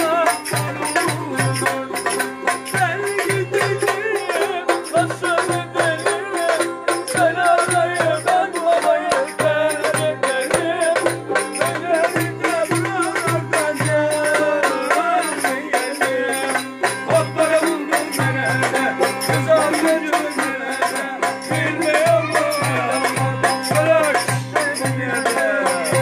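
Live Turkish folk dance tune (oyun havası): a violin plays a wavering, ornamented melody over a steady goblet-drum (darbuka) beat, with a long-necked lute playing along.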